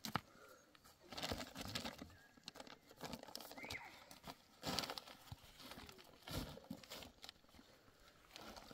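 Hands scraping, patting and crumbling dry soil and clods over a stone-ringed earth mound. The sound comes in uneven bursts of gritty scraping, with a few sharp knocks.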